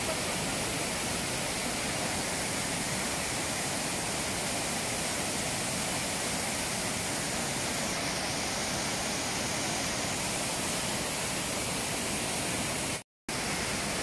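Limestone cascade waterfall rushing steadily over its many tiers. The sound cuts out completely for a moment about a second before the end.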